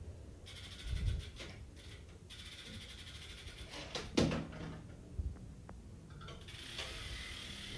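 Scattered knocks and handling noises from flattened drink cans being fitted into a rear wheel's rim, with one sharper knock about four seconds in.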